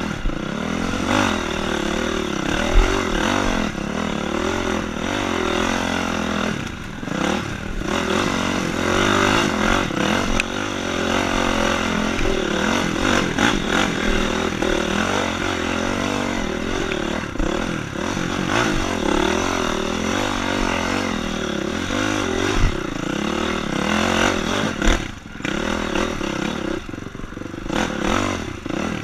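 Honda CRF four-stroke dirt bike engine revving up and down with the throttle while riding a rough woods trail, with chassis clatter and a few sharp knocks as the bike hits bumps.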